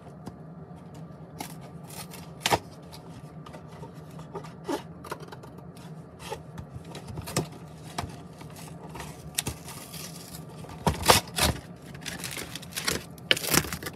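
Cardboard and plastic packaging of a Pokémon card box being handled and pulled open: scattered crackles, scrapes and sharp clicks, with the loudest bursts about eleven and thirteen seconds in.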